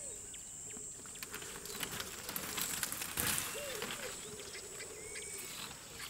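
Savanna ambience: a steady high insect buzz with scattered bird calls, including two short rising-and-falling low notes a little past halfway. A brief rustling noise about three seconds in is the loudest moment.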